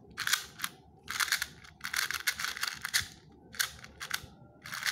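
Cyclone Boys 2x2 speed cube being turned fast, its plastic pieces clicking and clacking in about six quick flurries of turns with short pauses between. The cube turns fast and cuts corners well, and its owner finds it a bit too loose.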